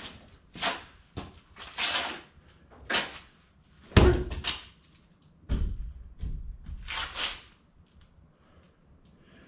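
Irregular knocks and clatters of objects being handled and set down, about a dozen in all. The loudest is a heavy thump about four seconds in.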